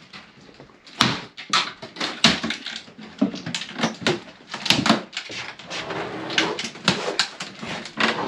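Irregular knocking and banging of a hand tool against a wooden boat's window frame and interior lining as the trim is prised off, starting about a second in, with two or three knocks a second.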